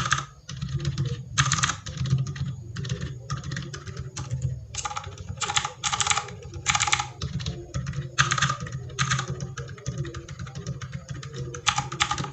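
Typing on a DA Meca 6 Plus mechanical keyboard fitted with a mix of Outemu switches, clicky blues alongside silent linears and tactiles: fast, uneven runs of key clicks, some clusters of keystrokes sharper and louder than others.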